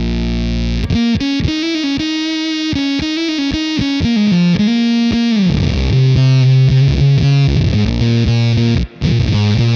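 Electric guitar played through a Fender Shields Blender fuzz with its sub-octave mixed louder than the fuzz. A held chord dies away, a run of picked notes starts about a second in, slides down into low notes around halfway, and the sound cuts out briefly near the end.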